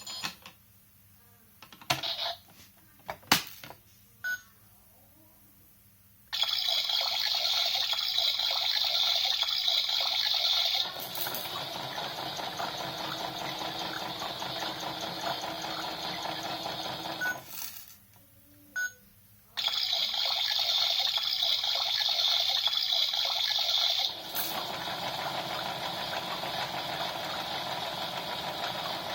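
Battery-powered toy washing machine switched on with a few button clicks, then running in stretches of steady whirring, hissing sound that changes every few seconds, with a short pause and another click about two thirds of the way through.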